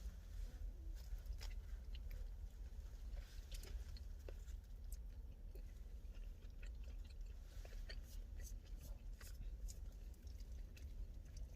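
Faint chewing of pizza, with many small scattered mouth clicks and smacks over a steady low hum.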